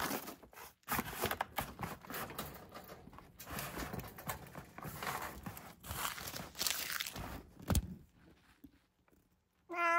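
Paper crinkling and tearing in irregular bursts as a cat paws and moves through torn paper in its cage, dying away about eight seconds in. A short, loud pitched call starts just before the end.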